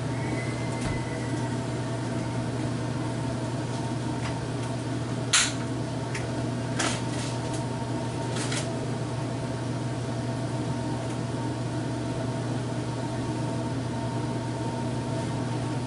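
Steady hum of a running household appliance or fan, with a low drone and several steady tones, broken by a few brief clicks around the middle.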